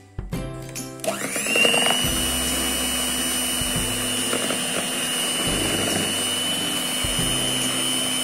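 Electric stand mixer switched on about a second in, its motor whine rising quickly and then running steady as the beaters blend whipped cream with batter.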